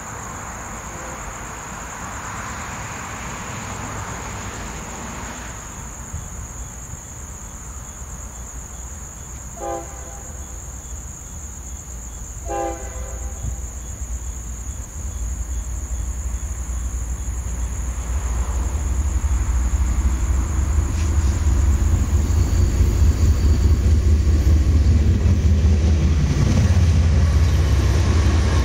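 A CSX diesel freight locomotive approaches, giving two short horn blasts about three seconds apart. Its low rumble then grows steadily louder as it draws near and passes.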